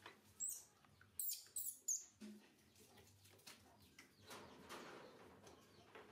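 Newborn baby macaque giving short, high-pitched squeaks, four of them in the first two seconds, some falling in pitch. In the second half, bath water splashes softly around it.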